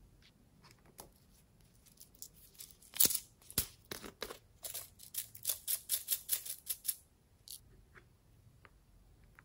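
Small plastic bottle of heart-shaped sequins being shaken out, the sequins rattling against the plastic in a quick run of clicks, about four a second.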